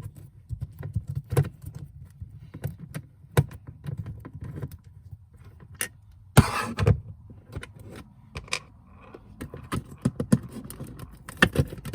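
A screwdriver working the screws of a small plastic light casing and the casing being handled: scattered small clicks, taps and rattles, with a louder scrape about six and a half seconds in.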